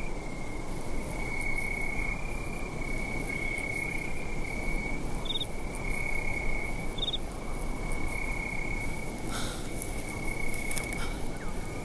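Crickets trilling steadily at night, one high continuous pulsing tone over a low even hiss, with two brief higher chirps midway.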